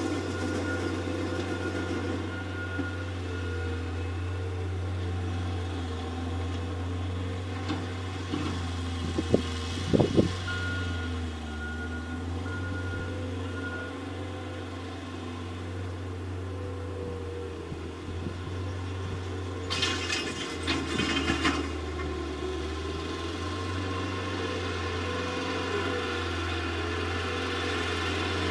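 Tractor engine running steadily under load while working a field, a low even drone. A faint evenly spaced beeping comes and goes, a couple of sharp knocks sound about ten seconds in, and a short clatter about twenty seconds in.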